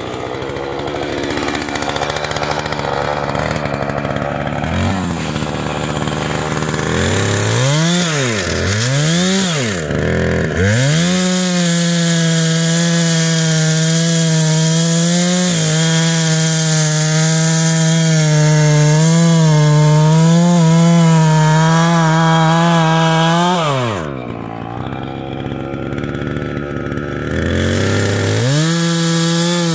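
Husqvarna two-stroke chainsaw making a center cut in an oak log. It revs up and down a few times, then runs at full throttle through the cut for about twelve seconds, its pitch wavering under load. It drops to idle for a few seconds and revs up again near the end.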